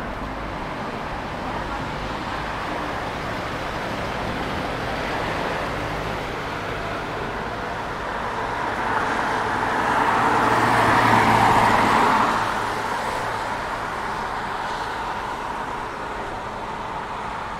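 Street traffic: steady road noise, with a vehicle passing close about nine to twelve seconds in, rising to its loudest and then fading.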